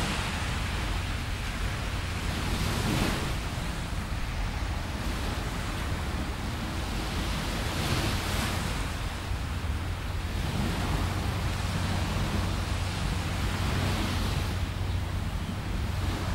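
Small waves breaking softly on a sandy beach, swelling every few seconds over a steady hiss and low rumble of wind on the microphone.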